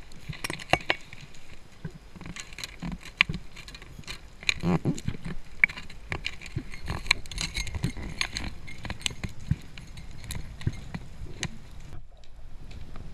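Underwater sound through a camera housing: irregular crackling clicks and light knocks, with a brief drop-out about twelve seconds in.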